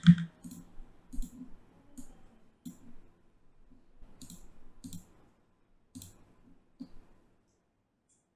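Computer mouse clicking: scattered single clicks, roughly one every half second to one second, stopping about seven seconds in.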